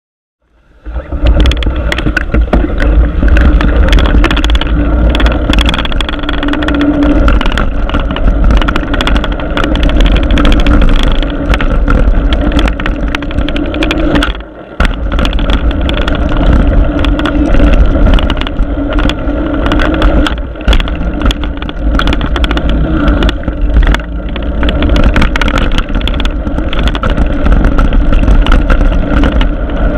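Mountain bike riding down a trail, heard from a GoPro mounted on the bike or rider. Wind buffets the microphone with a heavy rumble, and tyres, chain and frame rattle and click over rough ground. It starts abruptly about a second in and dips briefly about halfway through.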